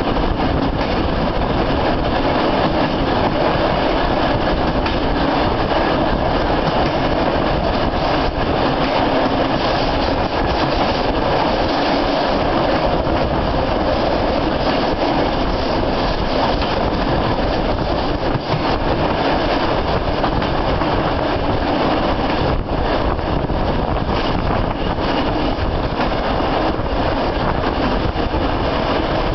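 A freight train of tank wagons running close alongside, heard from the moving Trans-Siberian train: a steady, loud rumbling din of wheels on rails.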